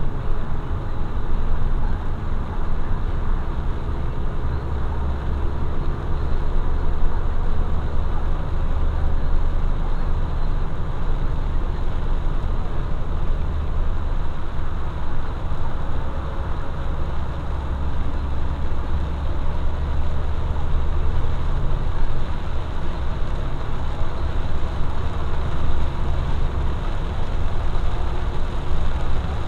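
Steady in-cab driving noise of a road vehicle on a rain-wet highway: a low engine drone with tyre noise, the rumble swelling for a few seconds at a time.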